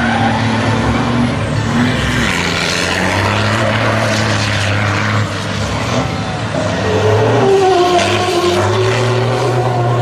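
Show truck's engine running hard under throttle during an exhibition run, its low drone shifting in pitch as the revs change, with a brief lift off the throttle about five seconds in.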